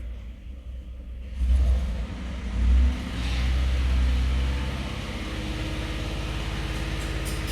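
Pickup truck engine running, still misfiring: it swells briefly twice and then rises for a couple of seconds, as if the throttle is blipped and raised, before settling into a steady, evenly pulsing run.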